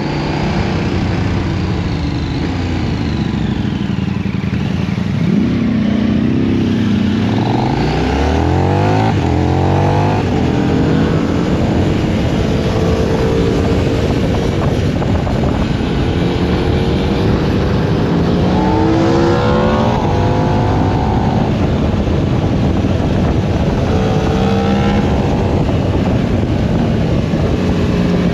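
High-performance naked sport motorcycle ridden hard, heard onboard: the engine note climbs and drops over and over with throttle and gear changes, over a steady rush of wind and road noise.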